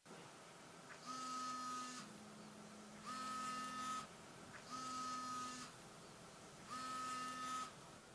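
Smartphone ringing with an incoming call: four electronic ring tones of about a second each, with short pauses between them.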